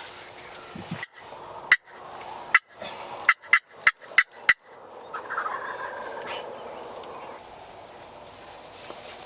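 Wild turkey tom gobbling about five seconds in, a rattling call that falls away. Before it comes a quick series of about seven sharp knocks.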